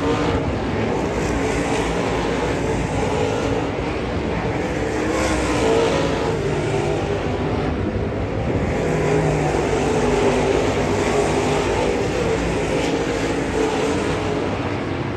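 Dirt late model race cars' V8 engines running at speed on the track, a loud steady drone whose pitch wavers up and down as the cars go around.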